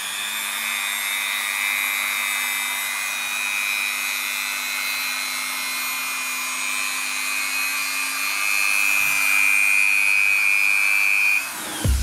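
TASP MMD002 130 W rotary multi-tool running at a steady speed with a high whine, cutting off abruptly near the end.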